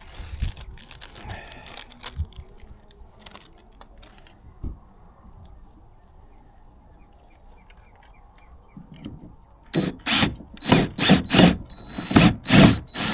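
Cordless drill driving screws into the kayak's plastic in short trigger bursts: about six quick pulses of motor whine near the end. Before that, a few light clicks of small parts being handled.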